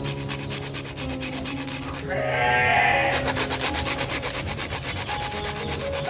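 Cassava being grated by hand on a flat metal grater into a bucket: a steady run of fast rasping strokes. About two seconds in, an animal gives one loud bleat lasting about a second.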